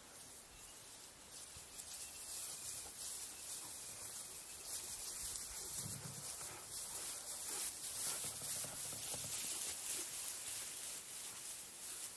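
Dry grass rustling and crackling close to the microphone, louder through the middle, with brief low rumbles about six and eight seconds in.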